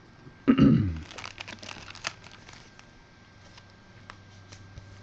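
A brief low voice sound, then plastic crinkling with a run of small crackling clicks as trading cards are handled, thinning out after a couple of seconds.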